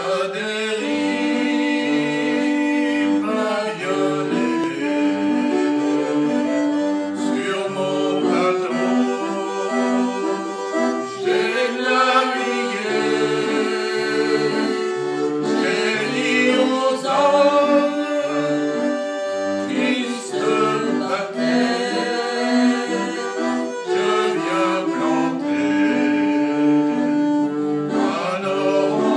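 Small wooden box organ with reeds playing a tune in sustained, accordion-like chords over short bass notes, going on without a break.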